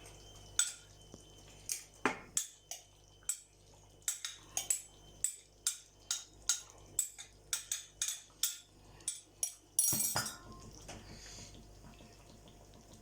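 A spoon clinks and knocks against the casserole pot in a quick, uneven run of taps, about two to three a second, as the flour-and-stock slurry is stirred into the beef casserole. It ends with one louder knock about ten seconds in.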